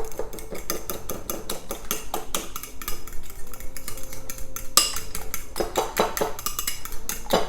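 A fork beating egg and soft brown sugar in a bowl: a fast, steady run of clinks as the tines strike the bowl.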